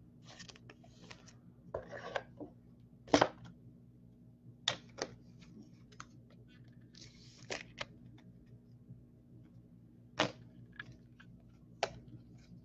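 Trading cards and a thin clear plastic card sleeve being handled: scattered crinkles, rustles and light clicks as a card is slid into the sleeve, with the sharpest click about three seconds in.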